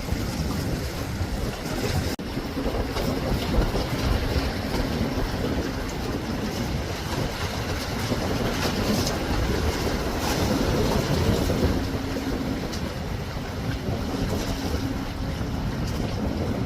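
Wind buffeting the microphone over the steady wash of sea waves against a harbour breakwater.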